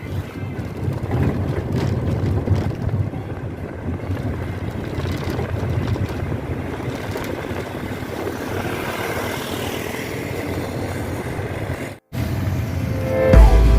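Steady rumble of a moving vehicle's engine and road or wind noise. It cuts off abruptly about twelve seconds in, and music starts near the end.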